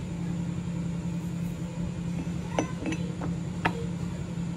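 Metal parts clinking as a steel gear and splined shaft are fitted into an aluminium gearbox case: a few light clinks past the middle, over a steady low hum.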